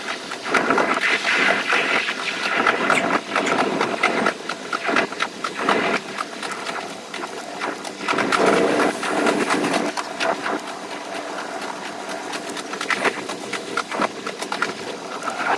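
JR West 283-series limited express train running, recorded at the front of the train and played back sped up: a dense, rapid clatter and rattle with uneven louder surges over a faint steady tone.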